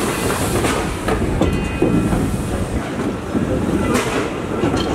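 Train rolling along the track: a steady rumble with the wheels clacking over rail joints a few times.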